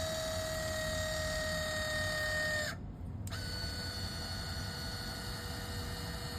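Steady high-pitched electrical whine from a small portable power inverter powering a 120 V damper actuator. It cuts out completely for about half a second roughly three seconds in, then comes back slightly lower in pitch.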